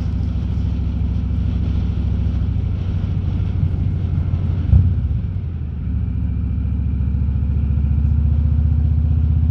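Harley-Davidson Road King's V-twin engine running steadily under way, picked up by a mic inside the rider's helmet. There is a brief knock about halfway through, then the engine note steadies and grows a little louder.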